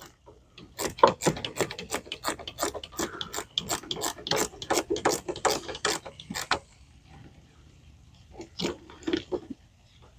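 Hand ratchet wrench clicking quickly, about four to five clicks a second, as a battery cable terminal nut is turned by hand; the clicking stops after about six seconds, followed by a few scattered clicks near the end.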